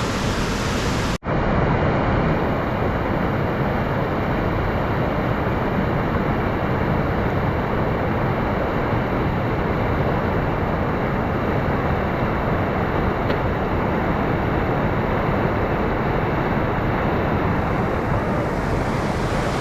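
Steady rush of fast whitewater on a high-running river, cutting out for an instant about a second in.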